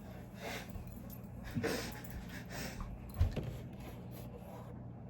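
Steady low electrical hum with a few soft rustling handling noises and a brief low thump a little after three seconds in.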